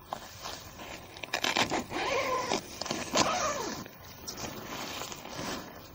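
Two drawn-out meow-like calls, each gliding up and then down in pitch, about two and three seconds in, over rustling and scraping of nylon tent fabric being handled.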